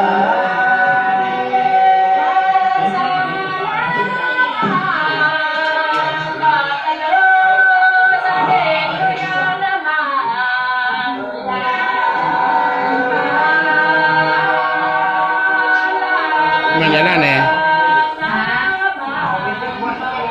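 A group of people singing together without instruments, several voices holding long notes, heard as a lo-fi recording played through a television's speaker.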